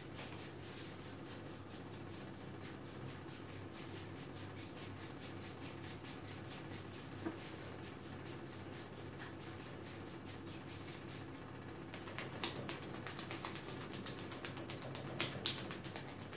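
Hands massaging a bare leg: faint rubbing of palms on skin, then from about twelve seconds in a run of quick, irregular pats and clicks of the hands on the skin.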